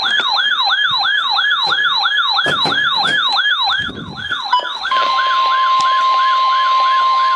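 NOAA weather radio receivers going off for a warning: a fast, repeating falling siren alarm, about four sweeps a second. About five seconds in, the steady 1050 Hz NWS warning alarm tone from the broadcast starts and holds under the siren.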